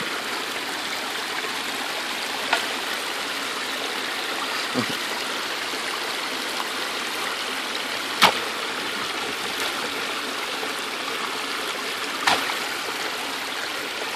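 Shallow creek water running steadily and splashing into a small pool. A few short sharp clicks sound over it, the loudest about eight seconds in.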